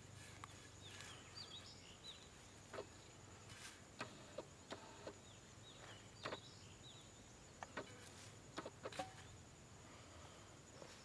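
Faint outdoor ambience: birds giving short, quick chirping calls over a steady high insect drone, with scattered light clicks and taps.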